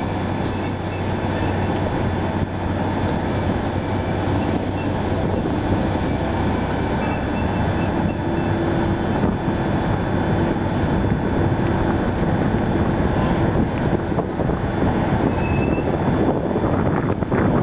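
Kirow KRC1200 railway crane's engine running steadily, a continuous low hum with no pauses.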